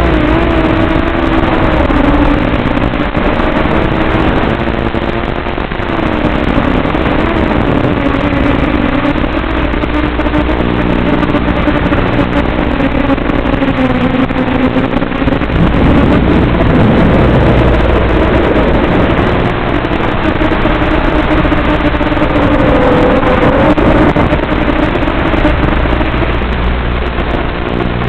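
FPV quadcopter's electric motors whining, the pitch drifting up and down with the throttle, over a steady low buzz.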